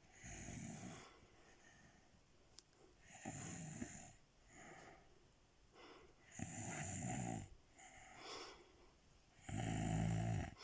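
Slow, regular snoring: four loud snores about three seconds apart, with softer breaths between them.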